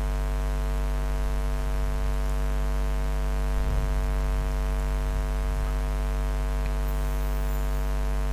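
Steady electrical mains hum: a constant buzzing drone made of many evenly spaced tones, with no speech over it.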